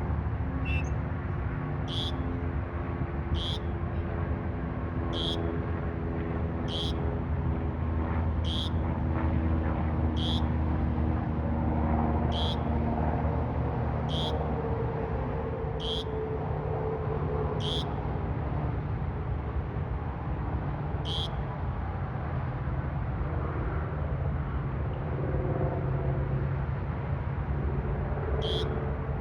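A bird repeating a short, high, shrill call about every one and a half to two seconds, over a steady low rumble of traffic.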